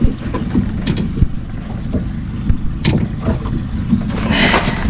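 Steady low rumble of a small fishing boat at sea, with wind on the microphone. A few short sharp clicks sound through it, and a brief hiss rises near the end.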